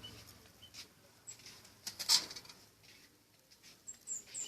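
Pet munia giving short, high chirps several times, mixed with brief rustles or flutters. The loudest rustle comes about two seconds in.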